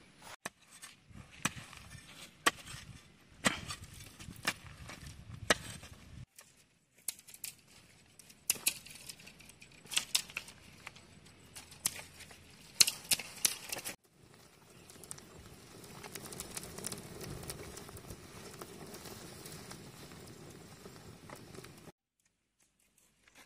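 Dry twigs and sticks cracking and clicking as they are broken and laid by hand, in quick irregular snaps, followed by a steady rushing noise.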